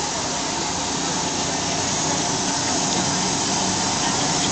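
Steady hiss of steam from a miniature steam locomotive standing with steam up, getting a little louder about two seconds in.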